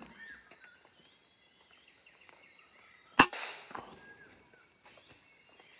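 A single air rifle shot: one sharp crack about three seconds in, followed shortly by a fainter click. Faint bird chirps and a steady high insect hum sit behind it.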